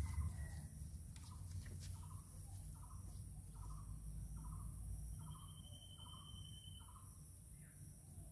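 A bird calling over and over, one short falling note about twice a second for some six seconds, over a steady high-pitched drone of insects and a low rumble.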